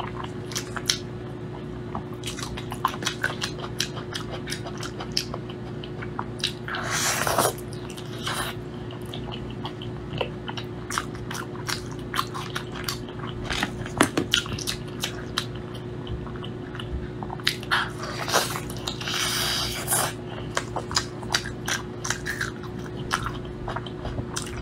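Close-miked eating sounds of someone biting and chewing sticky braised meat: many wet smacks and clicks of the mouth, with two longer hissy stretches, about seven seconds in and again near twenty seconds. A steady low hum runs underneath.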